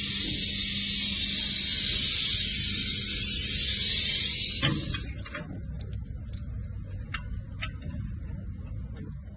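A loud steady hiss that stops suddenly with a click about halfway through, followed by a few light clicks and taps over a faint low hum.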